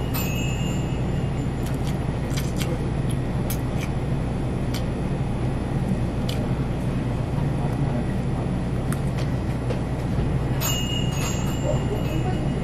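Steady low rumbling hum of background noise, with scattered short light clicks from eating chicken by hand, most of them in the first five seconds and a couple more near the end.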